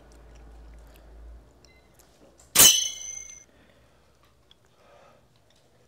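A single sharp clink with a short, bright ring, about two and a half seconds in; before it a low hum.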